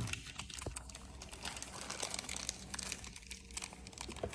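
Hands handling plastic smart-lock parts and wiring: light irregular clicks and rustling, with a sharper knock at the very start.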